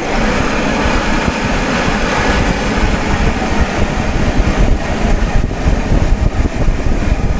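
Loud steady rumble and rushing noise of a vehicle or ride in motion, with no distinct engine note.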